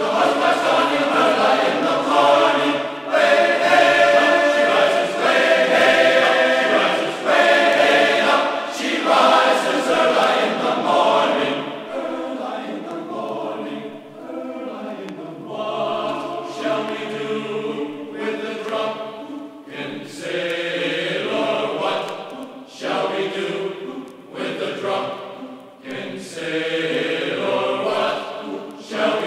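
Background music: a choir singing held notes and chords that change every second or so.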